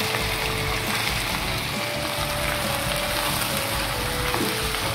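Minced meat and fried onions sizzling in hot oil in a pan as they are stirred with a wooden spatula, a steady hiss. A soft background melody of a few held notes plays under it.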